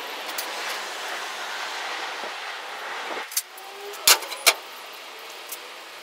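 A steady outdoor background rush for about three seconds, then two sharp metal clanks about half a second apart as a rusted steel disc is set down on a steel plate on a metal cart top.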